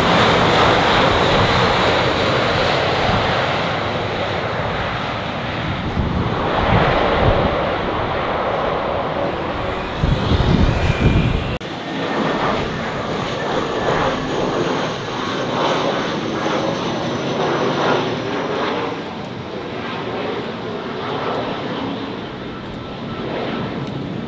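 Jet airliner engines at close range. First an Airbus A320's engines, loud and slowly easing. About halfway through, an abrupt cut to a Comac ARJ21-700 regional jet's turbofans, with a rushing sound and a faint high whine.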